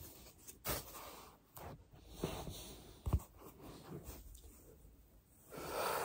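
Body and clothing rustling against the carpet as a massage ball is worked under the hip, with a few short soft knocks. A heavy exhale comes near the end.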